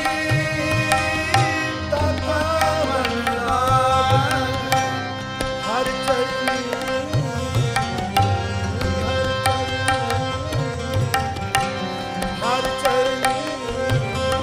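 Raag music on harmonium with tabla: a melody that bends and slides over steady held notes, with low tabla strokes recurring throughout.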